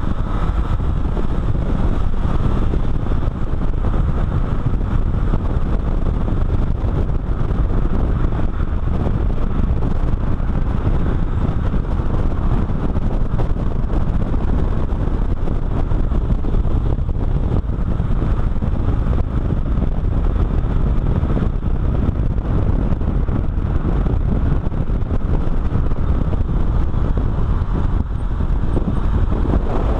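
A car driving at speed, heard from a camera mounted low on its side: steady wind buffeting on the microphone mixed with road and tyre noise.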